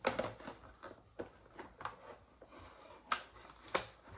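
Product packaging being handled and opened: rustling with a series of short knocks and clicks, the loudest just at the start and twice about three seconds in.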